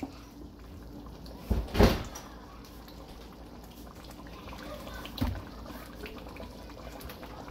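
A wooden spatula stirring thick curry in a large metal pot, with two knocks against the pot: a loud one about two seconds in and a lighter one about five seconds in.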